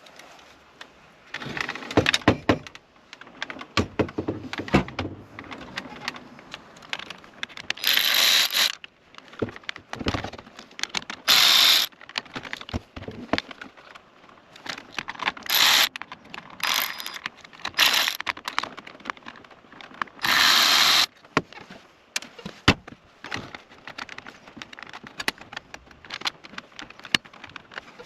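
Hand tools and plastic dash trim being worked around a car radio: a run of clicks, knocks and rattles, with about six short, harsh rasping bursts.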